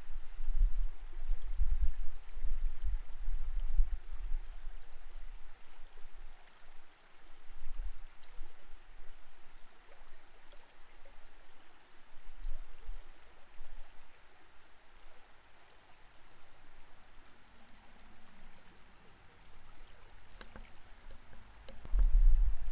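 Flowing creek water heard underwater: a steady hiss. Low rumbles come in the first few seconds, die down through the middle and return strongly near the end.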